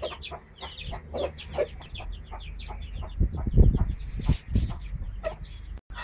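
Chickens clucking in quick, short calls, with loud low thumps of wind or handling on the microphone about halfway through.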